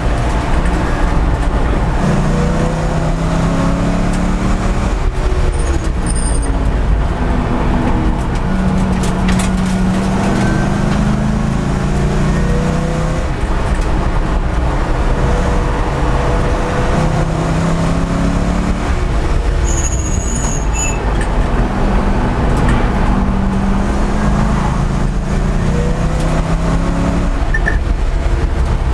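Race car engine heard loud from inside the roll-caged cockpit at racing speed. Its pitch rises and falls again and again as the car accelerates out of corners and slows into them, over a constant low rumble of road and wind noise.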